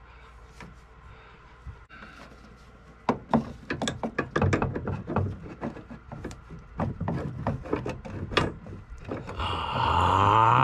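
A wrench and hands working on a brass compression fitting and copper pipe: a quick run of scrapes, rubs and clicks, then a loud drawn-out sound near the end.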